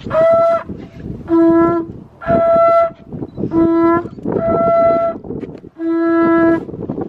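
Conch shell trumpet blown in six short blasts, alternating between a higher and a lower note about an octave apart. It is sounded as a signal call of the kind once relayed from one shell blower to the next across the island.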